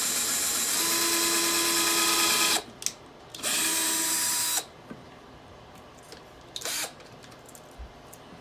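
Power drill with a 3/32-inch bit boring a pilot hole into wood: a steady whir for about two and a half seconds, a brief stop, then a second shorter run of about a second. After that only a few faint handling clicks.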